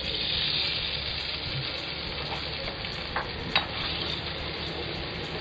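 Butter and canned-tuna oil sizzling in a hot wok, loudest just after the oil is poured in, while a wooden spatula stirs it. Two short clicks of the spatula against the pan come a little past halfway.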